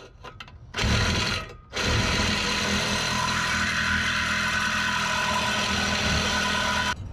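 Cordless reciprocating saw cutting through a 4-inch metal exhaust pipe to shorten it. A short first burst, a brief pause, then a steady cut of about five seconds that stops abruptly as the pipe is cut through.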